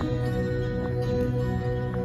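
Soft, slow instrumental music with steady sustained chords: the introduction of a song before the voices come in.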